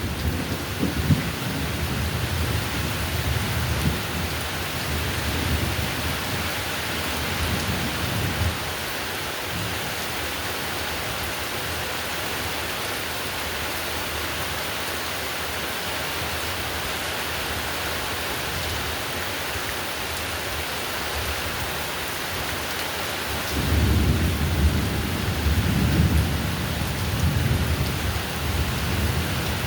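Heavy steady rain with rolling thunder: a low rumble dies away about eight seconds in, leaving rain alone, and a new roll of thunder builds near the end.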